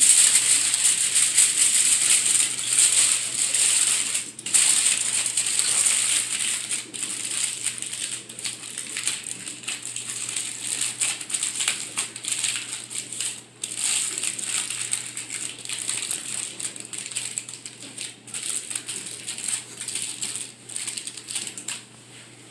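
Aluminium foil crinkling and crackling as it is folded and wrapped around food, loudest in the first few seconds and growing fainter toward the end.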